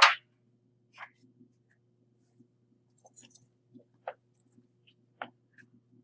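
A steel ball rolling down a metal channel ramp finishes its run and stops with a sharp clack right at the start. It is followed by a few faint, scattered clicks and knocks.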